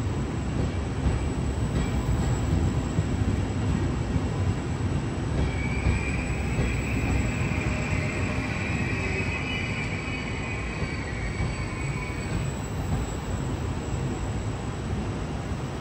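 Trenitalia Vivalto double-deck train, hauled by an E464 electric locomotive, rolling slowly past along the platform with a steady low rumble. From about five seconds in to about twelve seconds, a high-pitched metal squeal from the running gear rises over the rumble, then fades.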